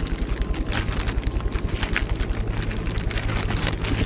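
Plastic zip-top bag crinkling and crackling as it is squeezed and kneaded to mix the liquid inside, over the steady low hum of the boat's motor.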